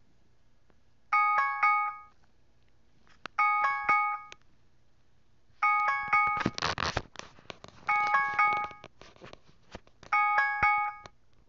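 An electronic bell chime sounds five times, each a quick cluster of bright ringing notes about a second long, repeating every two seconds or so. Between the third and fourth chimes there is a short burst of rustling with clicks.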